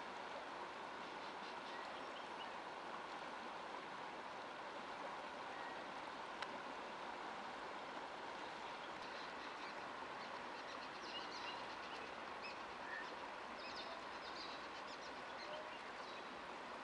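Steady, low-level rush of a shallow river flowing, with faint high chirps coming in from about halfway through.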